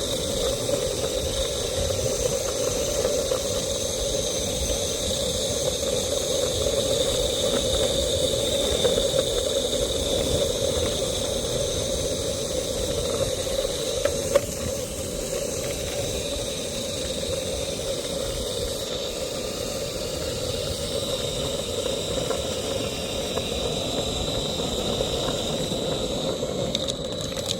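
Electric longboard driven by a DeWalt drill motor under way: the motor gives a steady whine over a low rumble and rushing noise from the wheels on the road. One sharp click about 14 seconds in.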